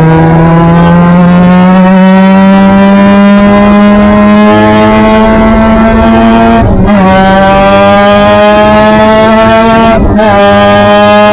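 Formula Mazda race car's rotary engine running hard at speed, heard loud from the onboard camera, its note climbing steadily. The note briefly breaks twice, about seven and ten seconds in, then carries on climbing.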